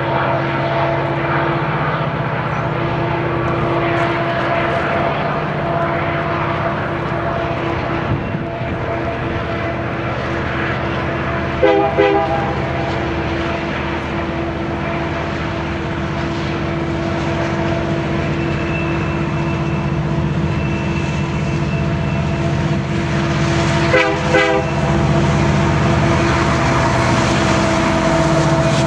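Union Pacific EMD SD70M diesel locomotives working upgrade with a freight train, a steady engine drone that grows as the units approach. Two brief clattering bursts come about 12 and 24 seconds in.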